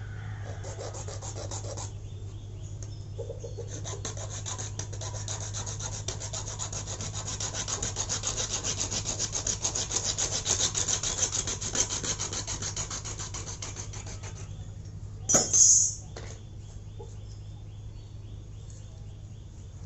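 Rapid rasping strokes of a hacksaw cutting through PVC pipe, cutting a short piece to length. There is a single loud clack about fifteen seconds in.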